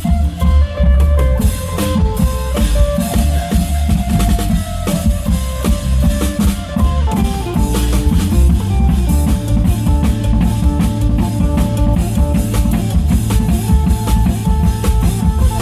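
Isan applied klong yao long-drum ensemble playing a fast, driving dance beat, deep drum strokes over rapid cymbal and rim hits, with a stepping melody line in the style of a phin (Isan lute) pattern on top.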